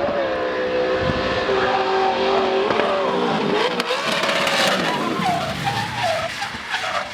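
Drift car at full throttle with its tires squealing as it slides; the engine note holds high, drops about three seconds in, then wavers up and down quickly near the end as the throttle is worked.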